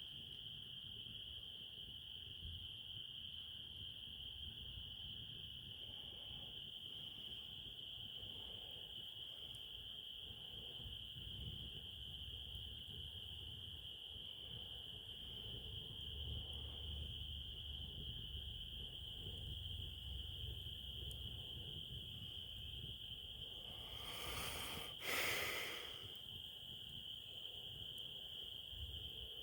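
Crickets chirring in a steady, high-pitched chorus. A brief louder rushing noise lasting about two seconds comes near the end.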